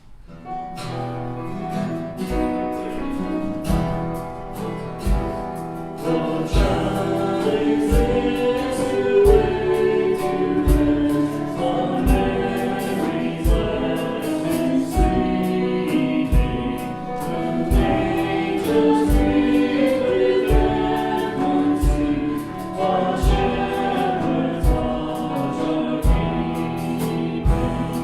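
A worship song begins: voices singing together over a steady drum beat. It starts softly and fills out a few seconds in.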